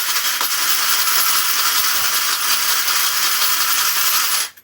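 Brass .223 rifle cases rattling continuously in the plastic tray of a Lee case collator as it is shaken to sort them into the feed holes. The rattling stops abruptly near the end.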